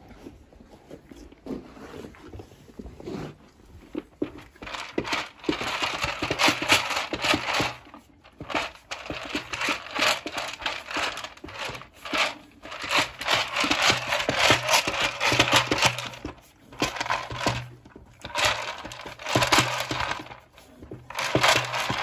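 Plastic treat-dispensing ball rattling and scraping as a horse pushes it about the stable floor with its nose, in bursts of a few seconds with short pauses between.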